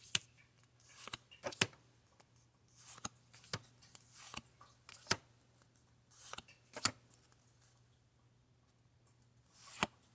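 Pokémon trading cards handled one after another: soft swishes of cards sliding over each other and sharp little card snaps, irregularly about once a second, with a lull of about two seconds before a last swish and snap near the end.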